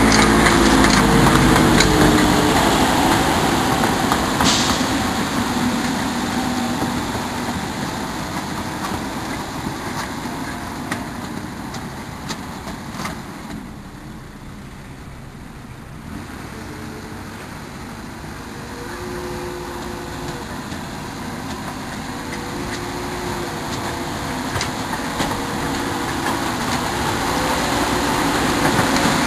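A miniature railway locomotive's diesel engine running. It is loud at first, fades to its quietest about halfway through, then grows louder again toward the end.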